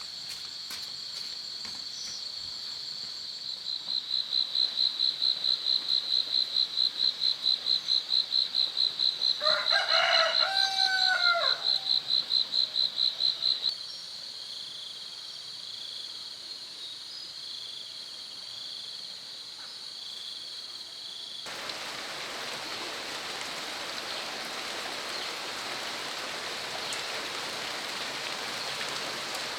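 Insects shrilling steadily, with a louder rapidly pulsing insect call, about four pulses a second, for roughly the first half. A rooster crows once about ten seconds in.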